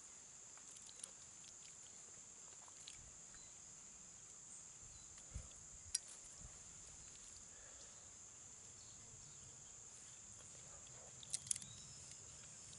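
Steady high-pitched drone of insects, with a few faint sharp clicks of hickory nut shell being picked apart by hand with a small pointed tool: one about halfway through and two close together near the end.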